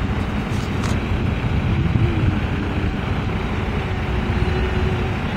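Engines of a pickup truck and a heavy work truck running at low speed close by, a steady low rumble, as the pickup edges forward.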